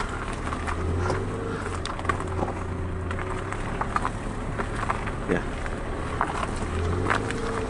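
Car engine running at low speed with a steady low hum, its tyres crunching and crackling over a gravel track.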